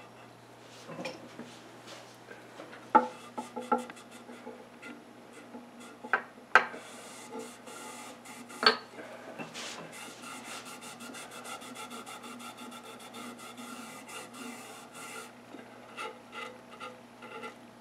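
A rag rubbing quickly back and forth along a wooden table leg, wiping off glue squeezed out of freshly laid inlay stringing. Before the wiping, a few sharp knocks of a small hand tool on the wood.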